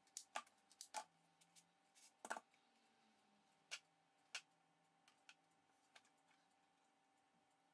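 Faint clicks and taps of plastic spring clamps and a stack of paper being handled and set down on a cutting mat. Several come in quick succession in the first two and a half seconds, then a few scattered ones follow.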